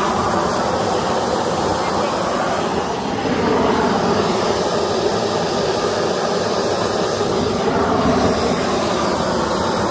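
Long-wand propane torch burning continuously at a steady flame, a loud, even rushing noise.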